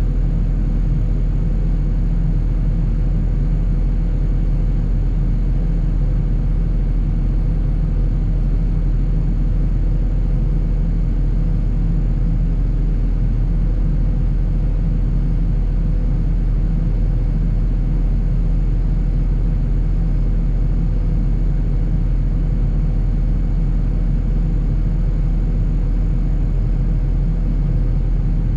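John Deere 250G excavator's diesel engine running at a steady speed, a loud, even drone that does not rise or fall.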